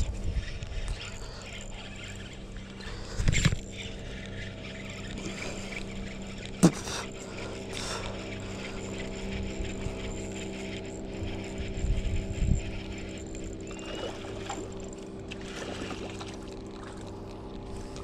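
A steady engine drone runs throughout, with a few dull knocks and one sharp click about seven seconds in.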